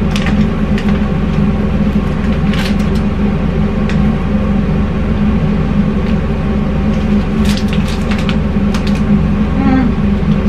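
A steady, loud droning hum with many even overtones, under a few short crackles as a bag of Cretors caramel-and-cheese popcorn is handled and the popcorn is eaten, a cluster of them about three quarters of the way through.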